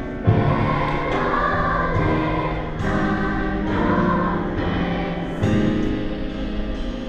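Children's choir singing a vidala, holding long sung notes over a low accompaniment, with a low thud about a quarter second in and another about five and a half seconds in.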